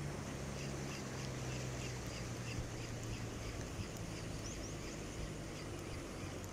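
A bird calling in a quick series of short, high chirps over steady wind and water noise. A low steady hum runs under it through the first half.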